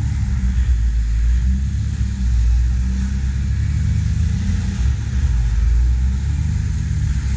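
Jeep Grand Cherokee WJ's V8 engine running at low revs under load in deep mud, a steady low rumble that swells and eases slightly.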